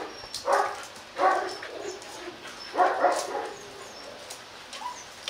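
Hmong bobtail dog vocalizing in three short bursts, about half a second in, just after a second, and around three seconds in.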